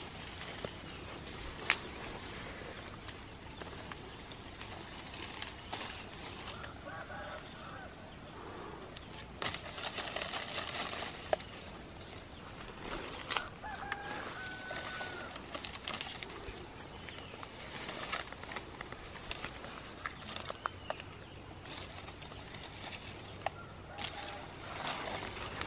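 Leaves rustling and shaking as hands pull through litchi tree foliage, with occasional sharp snaps. A steady high whine runs throughout, and a chicken clucks a few times in the background.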